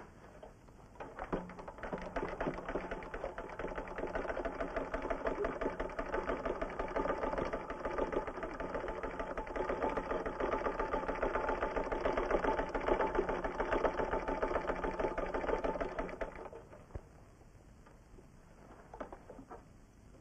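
A machine running with a fast, dense clatter over a steady low hum for about fifteen seconds, then stopping.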